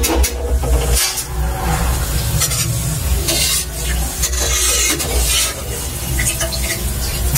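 Boondi frying in oil in a steel kadhai, sizzling in uneven rushes, while a perforated metal spoon scrapes through the pan to lift the fried boondi out. A steady low hum runs underneath.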